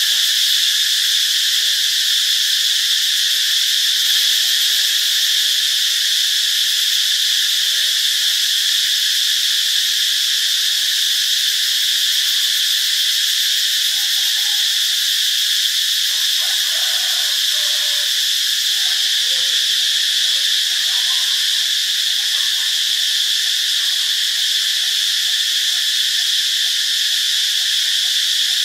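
Cicadas singing in a loud, continuous high-pitched buzz that holds steady without a break.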